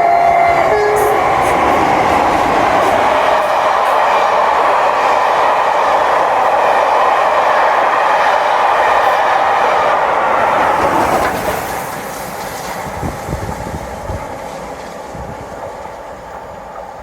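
A train passing at speed, with a loud steady rush of wheel and track noise. Its two-tone horn finishes about a second in. The noise drops away about eleven seconds in and fades as the train moves off.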